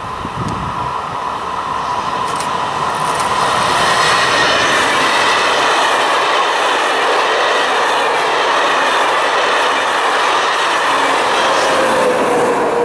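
Locomotive-hauled passenger train of Corail coaches passing close by, growing louder over the first few seconds and then holding steady. The wheels clatter over the rails, with a steady high whine over the rolling noise.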